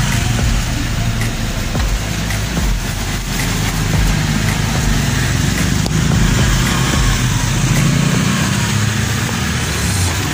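Motor vehicle engine idling with a steady low hum, under general street noise.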